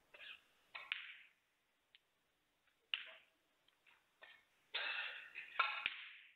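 Snooker balls clicking: a few separate sharp knocks of ball on ball with short ringing tails, then a denser run of knocks and a longer rattle from about four and a half seconds in.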